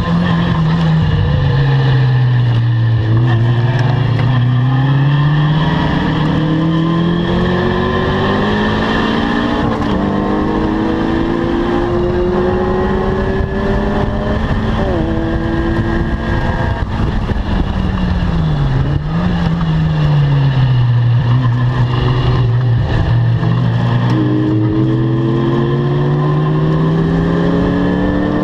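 Caterham R300 sports car engine driven hard on a circuit. It slows for the first few seconds, then revs climb steadily with a quick drop at each upshift, about halfway through and again near the end. In between, the revs fall and pick up again for a corner.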